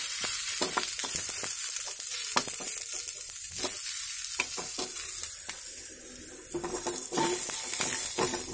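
Sliced ivy gourd frying and sizzling in a little oil in a pan, stirred with a wooden spatula that makes frequent short scrapes and clicks against the pan.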